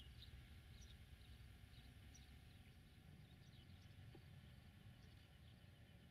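Faint birds chirping here and there over a low, steady rumble.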